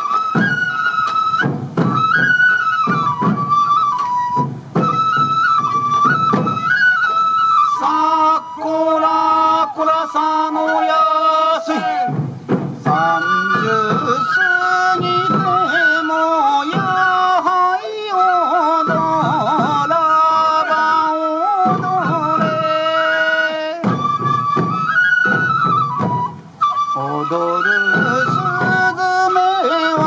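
Morioka sansa odori festival music: a Japanese bamboo transverse flute plays the melody over repeated taiko drum beats from the dancing drummers.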